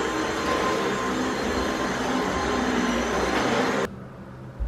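Cordless stick vacuum cleaner running on a rug: a steady motor whine and rush of suction. It cuts off suddenly about four seconds in, leaving quieter room sound and a short thump.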